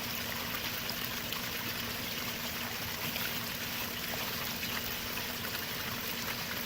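Pond waterfall running steadily, an even rush and splash of water driven by a Smartpond 1200-GPH submersible pump.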